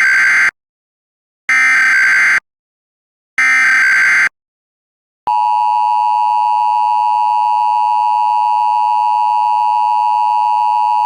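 Emergency Alert System tones: three short bursts of the SAME digital header, each just under a second long with about a second of silence between, then the steady two-tone EAS attention signal starting about five seconds in.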